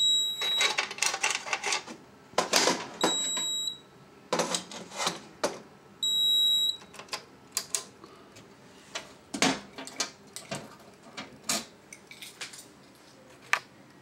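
Fire-Lite MP-12 fire alarm control panel's piezo sounder beeping three times, each a short high steady tone about three seconds apart, amid repeated clicking and rattling from hands working inside the panel and at its metal door.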